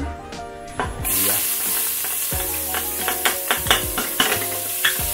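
Chopped ginger frying in hot oil with star anise and bay leaves in an aluminium pressure-cooker pot, the sizzle starting suddenly about a second in as the ginger hits the oil. A wooden spoon scrapes and stirs with scattered clicks.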